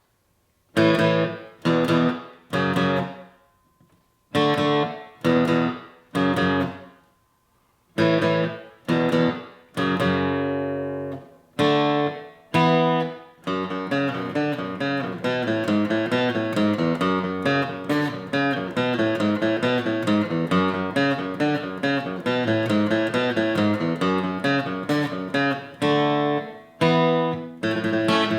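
Guitar music: separate strummed chords with short silences between them, then from about halfway a steady run of quickly picked notes.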